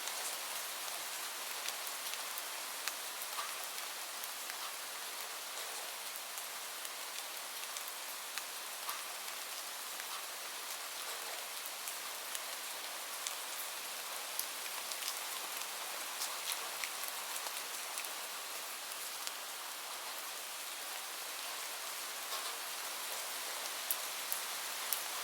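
Steady rain falling, an even hiss with many small drops pattering and clicking on a surface.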